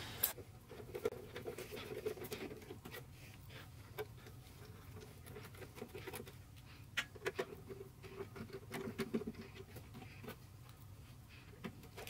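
Faint clicks and scraping of a hand screwdriver turning the rear case screws of a QNAP TS-451+ NAS, with scattered small ticks and a few sharper taps.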